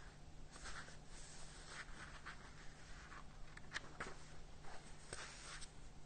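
Faint paper rustling and soft scattered clicks as the pages of a small book are leafed through, over a steady low electrical hum.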